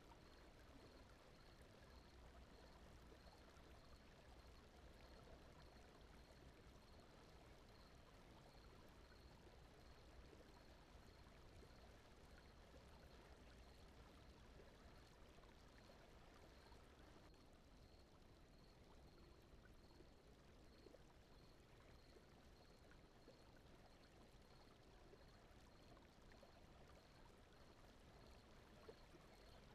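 Near silence: a faint, steady background noise bed for sleep, with a faint high pulse repeating at an even pace throughout.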